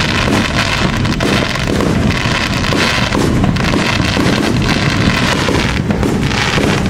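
Distant aerial fireworks bursting with faint pops and crackles, under a steady rumble of wind buffeting the microphone.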